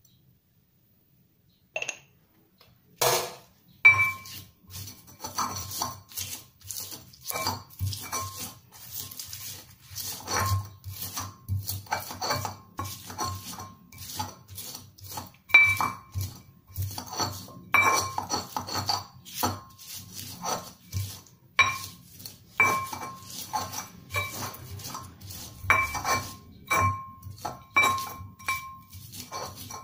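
Ceramic pestle pounding and grinding chilies and shallots in a ceramic cobek (mortar). After a short quiet come a couple of clinks and one loud knock, then a fast, uneven run of knocks, each with a ringing ceramic clink.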